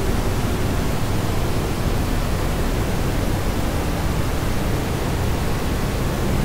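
Steady, loud hiss of static-like noise spread evenly from low to high pitch, with no tone or rhythm in it.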